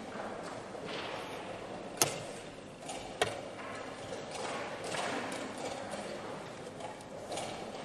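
Two sharp wooden clicks a little over a second apart: a chess piece set down on the board and the chess clock's button pressed, over faint steady background noise.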